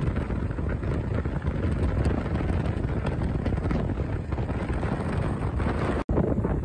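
Wind buffeting the microphone on a motor scooter riding at road speed, with the RKS Newlight 125 Pro's engine and road noise underneath. The sound cuts out for an instant near the end.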